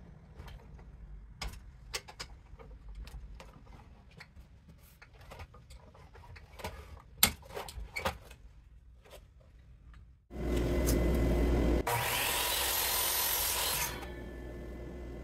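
Light clicks and knocks of handling at a chop saw, then about ten seconds in the chop saw's motor starts and its blade cuts through a block of wood for about two seconds, the loudest part. After the cut the saw runs on more quietly without load.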